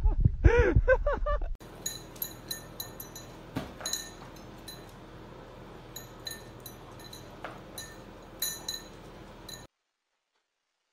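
A man speaking Russian briefly. Then a run of light metallic jingles and clinks with a bright ringing tone for about eight seconds, which cuts off suddenly near the end.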